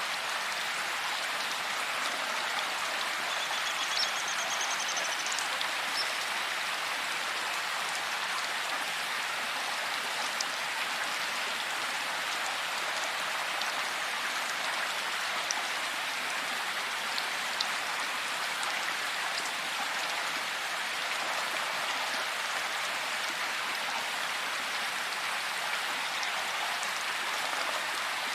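Steady rain falling: a dense, even hiss with scattered louder drop ticks. A faint, high-pitched trill sounds briefly a few seconds in.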